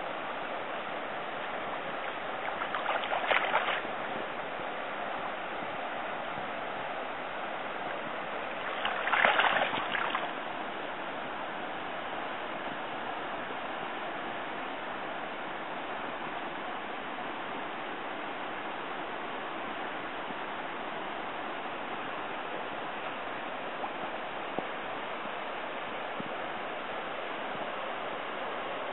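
Shallow stream running steadily, with two short bursts of splashing, about three seconds in and again about nine seconds in, from a dying steelhead thrashing weakly in the shallows.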